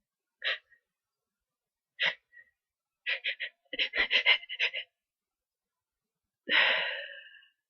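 A person with a head cold building up to a sneeze: two short catching breaths, then a fast stuttering run of about ten quick gasps, then one loud sneeze near the end that trails off over about a second.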